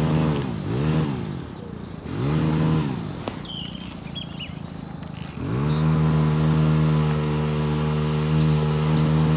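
Strimmer engine revving up and down three times in quick swells, then held at steady high revs from about five and a half seconds in.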